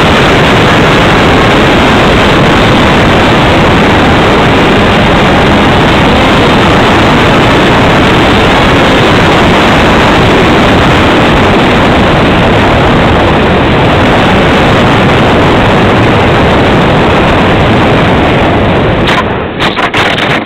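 Overloaded rush of wind and the electric motor of a Radjet 800 RC flying wing in flight, heard through its onboard camera's microphone as a loud, steady noise with no clear tone. Near the end a few knocks as the plane touches down in grass, and the noise breaks off.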